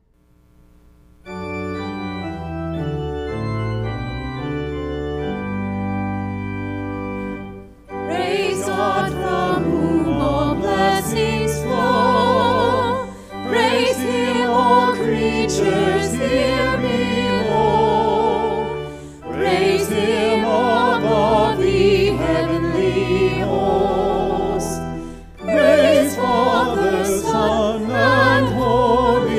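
Pipe organ playing a short introduction of held chords, then a small choir of four voices singing with the organ in phrases with brief breaks between them.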